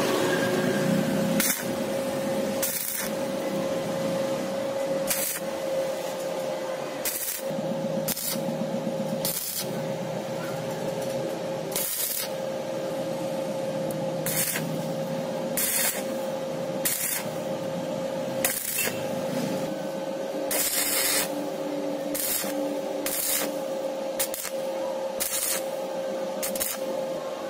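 Stick (shielded metal arc) welding on steel bar stock: the arc crackling and hissing, breaking every second or two into short louder bursts, with a steady hum underneath.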